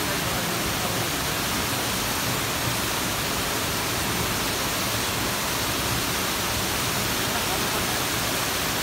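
Waterfall pouring down a rock chute: a steady, unbroken rush of white water.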